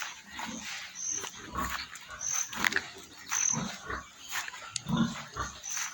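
Pigs grunting and squealing irregularly, with short high peeps about once a second.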